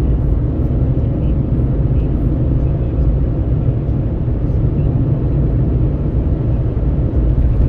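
Road noise of a vehicle driving along a highway: a steady, loud low rumble of tyres and engine, with wind at the window.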